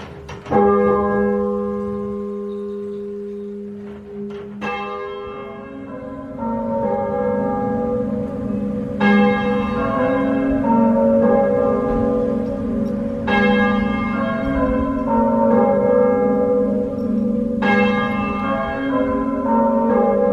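Fully muffled church bells rung in mourning: a single bell strikes and hums on, strikes again about four seconds later, then several bells join in rounds as a dull, blurred clanging. Through it the tenor's open backstroke rings out clear and bright about every four and a half seconds.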